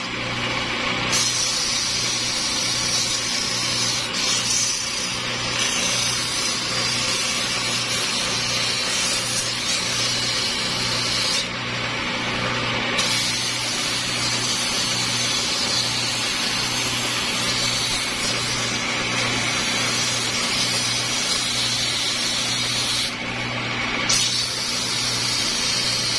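Electric motor of a homemade cue lathe spinning a pool cue with a steady hum, under the hiss of P120 sandpaper held against the turning handle to strip off the old wrap glue. The sanding hiss eases off briefly twice.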